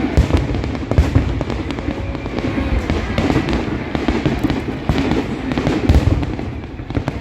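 Fireworks display: a dense run of bangs and crackles over heavy low booms, the loudest about a second in and again near the end.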